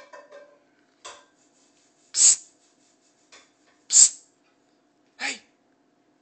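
Short, sharp puffs of breath close to the microphone, about five of them a second or so apart, the two loudest about two and four seconds in.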